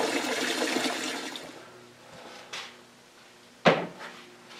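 Hot water running into a bucket to make an oxalic acid wash, tapering off and stopping about a second and a half in. Near the end, a single sharp knock.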